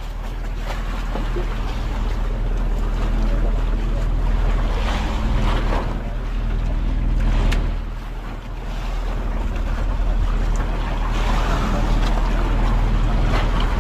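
Motorized outrigger fishing boat (bangka) under way: a steady engine drone with water rushing past the hull and wind on the microphone.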